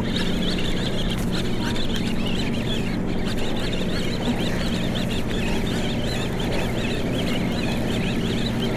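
Steady low hum of the party boat's engines, with many short, high calls from a flock of birds overlapping throughout.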